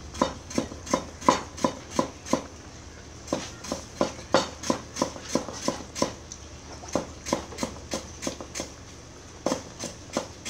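Rhythmic knocking, about three sharp strikes a second in runs with short pauses, over a steady low hum.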